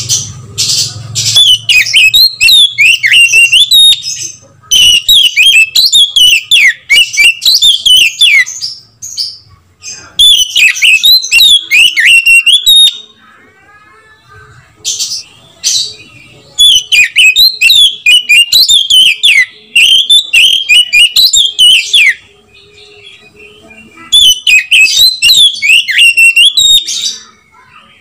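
Oriental magpie-robin in full song: loud, fast, varied whistled phrases in about six bursts of a few seconds each, separated by short pauses, one burst near the middle much shorter.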